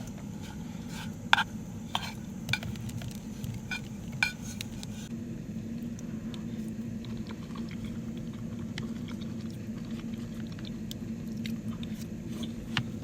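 A metal utensil clinking and scraping against a pan or dish, several sharp clinks in the first few seconds, then fewer and scattered, over a steady low hum.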